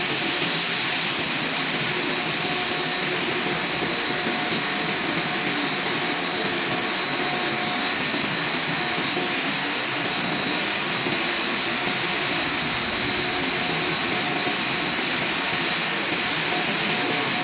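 Machinery of a dry pet food production line running steadily: a dense, even mechanical noise with a constant high whine.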